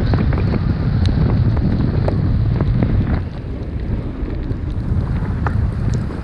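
Wind rushing over an action camera's microphone while snowboarding fast through deep powder, a heavy low rush mixed with the board hissing through the snow and scattered small ticks. It eases off slightly about three seconds in.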